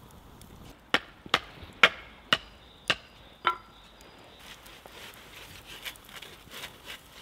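Six sharp chopping knocks on wood, about half a second apart, followed by lighter scattered clicks and scrapes.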